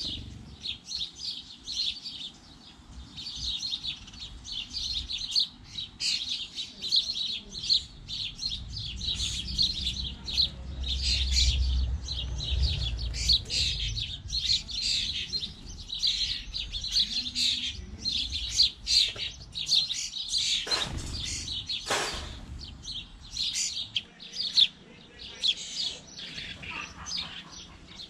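House sparrows chirping continuously, a dense chatter of quick, high chirps. A low rumble comes in about ten seconds in for a few seconds, and two short, sharp sounds follow about twenty seconds in.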